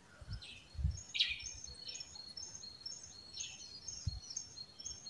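A bird singing in the background: a quick, steady series of short high chirps that alternate between two pitches. A few faint low thumps sound under it, mostly in the first second.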